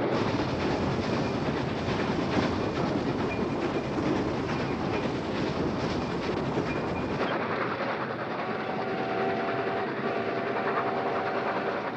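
Steam train running: steady rumble and clatter of wheels on the rails. About seven seconds in, the sound changes and loses its deepest and highest parts, and a few steady held tones join it.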